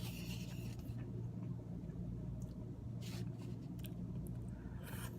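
A person chewing a mouthful of teriyaki chicken and rice, with short, crisp mouth and food noises every second or so over a steady low hum.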